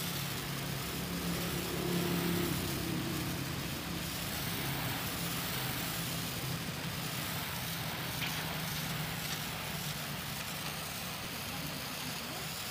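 Pressure washer running: a steady low motor hum under the hiss of the high-pressure water jet blasting grime off a concrete court. The hum is strongest in the first few seconds and then fades under the hiss.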